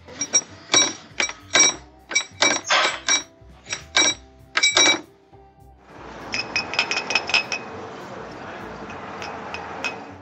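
Irregular, sharp metallic clanks with a ringing tone for about five seconds. After a brief pause comes a steady gritty rasp with lighter metallic clinks from a removed GMC Envoy water pump.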